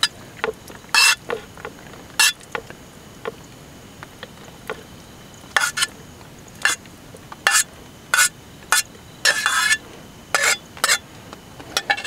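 A utensil scraping and clinking against a small metal camping pot as glass noodles are pushed out into a plastic bowl: a string of short, separate scrapes, one a little longer near the end, over a faint steady hiss.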